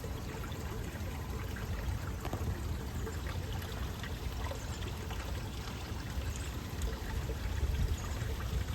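Water running steadily, like a small stream, with a low rumble underneath.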